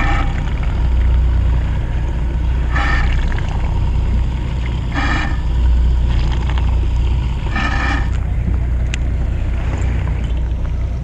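Fishing boat's engine running as a steady low rumble, with four short higher-pitched sounds about two to three seconds apart.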